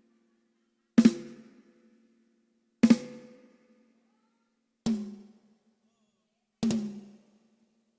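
A drum is struck four times, one hit about every two seconds, as in a sound check. Each hit rings out with a pitched tone that fades within about a second. The last two hits are softer than the first two.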